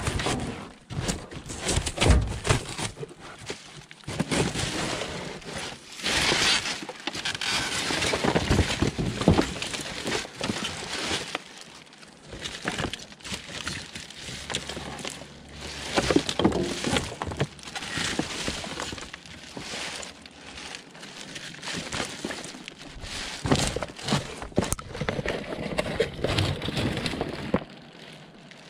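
Debris and scrap clattering and crunching as someone rummages through a dumpster, with many irregular knocks and scrapes.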